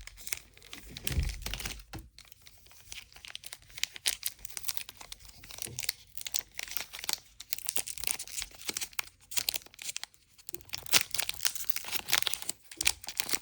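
Foil Pokémon booster-pack wrapper crinkling and tearing as it is opened, in a long run of irregular crackles and rustles.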